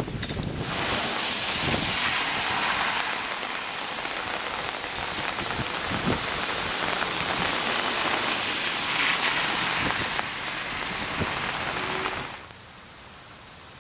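Steady rain splashing on a wet, puddled asphalt street. It cuts off abruptly about twelve seconds in.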